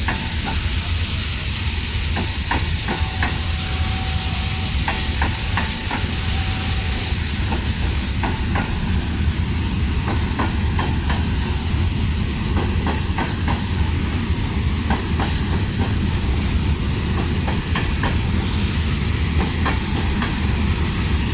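Railway wagons rolling past at low speed: a steady heavy rumble with irregular clicks of wheels over rail joints, and a thin squeal for a few seconds near the start.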